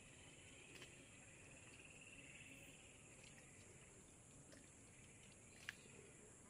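Near silence: a faint, steady chorus of jungle insects, with two small clicks, the second near the end.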